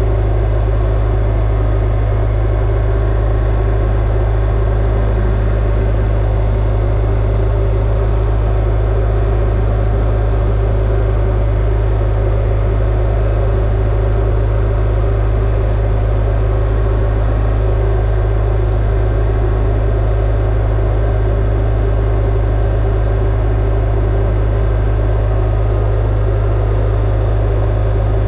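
Broderson IC-35 carry deck crane's engine and hydrostatic drive running at a steady idle, a loud even low hum with no changes.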